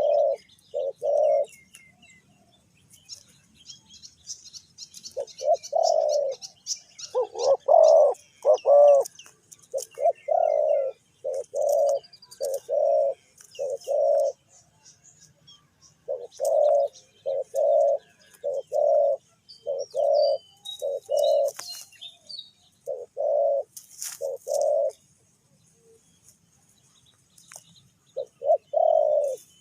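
Spotted dove cooing: low, mellow coo notes repeated in short series with pauses between, loudest about a quarter of the way in. Small birds chirp faintly in the background.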